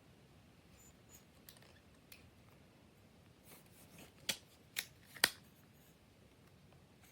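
Faint ticking, then three sharp plastic clicks about half a second apart, the last one the loudest: the parts of a selfie-stick tripod being handled.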